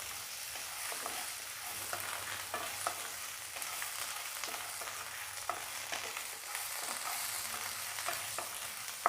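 Chopped karpooravalli (Indian borage) leaves frying in hot oil in a pan, sizzling steadily. A utensil stirring them makes irregular scrapes and taps against the pan.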